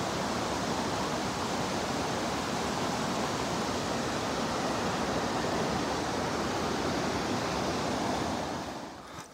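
A fast river rushing over rocks, a steady, even rush of water that fades out near the end.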